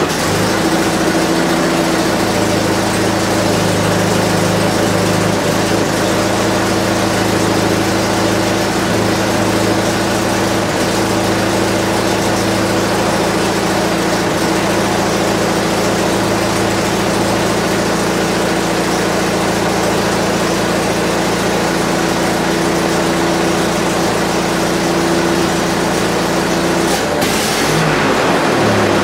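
Willys M38A1 jeep's F-head four-cylinder engine running steadily just after being started; about two seconds before the end its note shifts briefly, then settles again. The owner says it is running weird.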